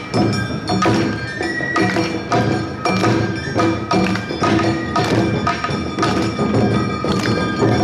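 Awa odori festival music played live by a narimono band: the handheld kane gong rings with each strike over a steady drum rhythm, with a few held high melody notes.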